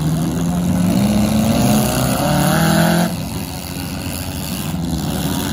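Demolition derby cars' engines revving hard, one climbing in pitch for about three seconds and then dropping back sharply, with the rough sound of other engines carrying on underneath.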